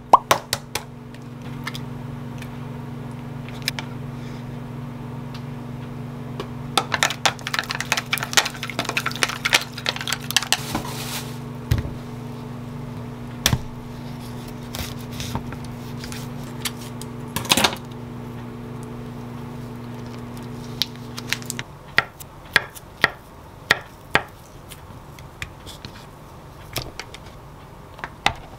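A kitchen appliance hums steadily, then switches off about two-thirds of the way through. Over it a chef's knife slices a tofu bar on a wooden cutting board, with sharp taps of the blade on the board and the clatter of plastic containers and utensils being handled.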